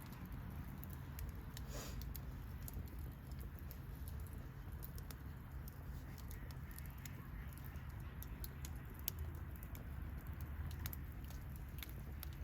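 Wood bonfire crackling: irregular sharp snaps and pops over a low steady rumble, with one louder pop about nine seconds in.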